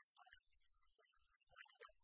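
Near silence, with only faint scattered background sounds.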